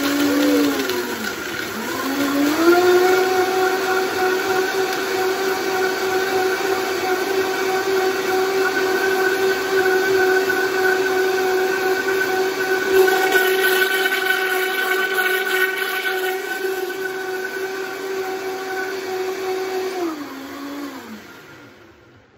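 Vitamix blender motor blending cashews and water into a creamy ranch dressing. The whine dips briefly at the start, then climbs to a steady high pitch about two and a half seconds in as it is turned up to high. It holds for about 18 seconds, then winds down and stops near the end.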